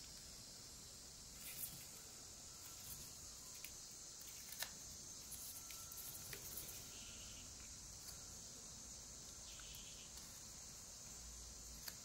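Faint, sparse scrapes and light clicks of a pocket knife blade cutting into soft pine as a small carving is whittled, over a steady high hiss.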